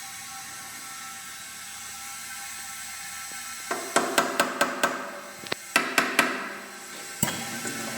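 Two quick runs of sharp tool taps, about four to five a second, then a single tap near the end, over a steady workshop hum.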